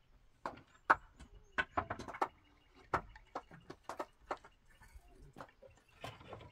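Scattered knocks and clacks of rough wooden planks being handled and set in place, about a dozen irregular hits with quiet between them.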